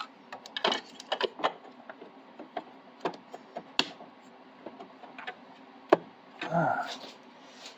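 Scattered light clicks and taps of plastic and metal parts being handled while a 3D printer is assembled, with a short scraping rustle about six and a half seconds in. A faint steady hum runs underneath.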